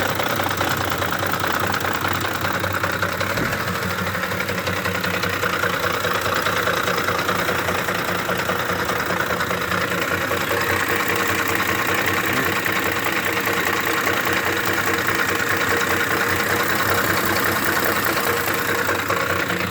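2009 Ford F-150's 5.4-litre V8 idling roughly with a steady chatter while the RPM holds constant. The intermittent fault clears with a slight rev; mechanics said it could be a cam phaser, timing chain, VCT solenoid or oil pump.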